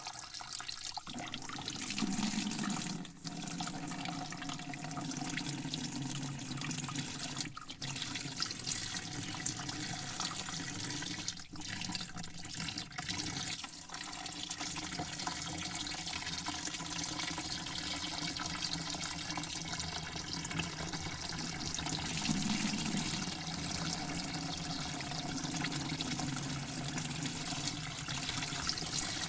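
Water running in a steady stream, with a few brief dips in level.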